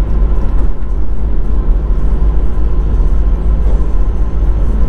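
Steady low rumble of a VW Caddy van driving along a road, engine and tyre noise heard from inside the cab.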